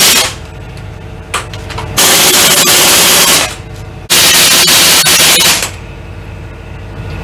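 Pneumatic impact wrench hammering bolts down on a transmission case: a short burst right at the start, then two longer bursts of about a second and a half each, about 2 s and 4 s in. A lower steady hum runs between the bursts.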